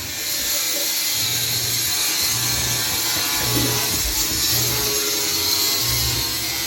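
Wood being sawn: a steady hiss with a low stroke repeating about once a second.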